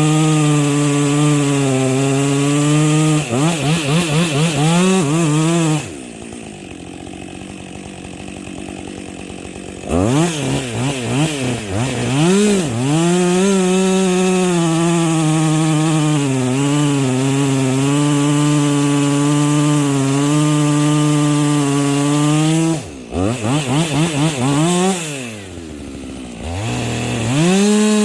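Gas chainsaw cutting into a fir trunk at high, steady revs. Twice, about six seconds in and again near the end, the throttle blips rapidly and the saw drops to idle for a few seconds before revving back up.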